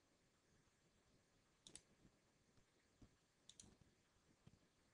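Near silence broken by faint computer mouse clicks: a quick pair of clicks a little under two seconds in and another pair about two seconds later.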